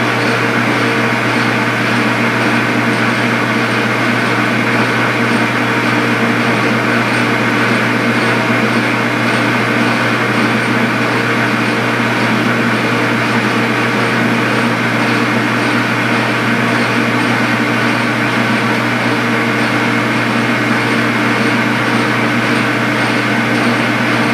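Metal lathe running steadily as its tool faces the end of a bronze bar: a constant machine hum with several steady tones over an even hiss.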